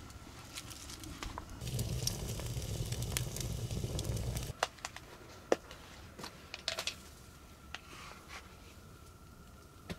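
Wood campfire crackling, with scattered sharp pops and a low rushing noise for a few seconds near the start.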